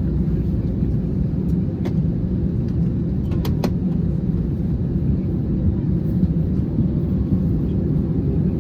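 Steady low rumble inside the cabin of an Airbus A320 during pushback and engine start, with a few faint clicks between two and four seconds in.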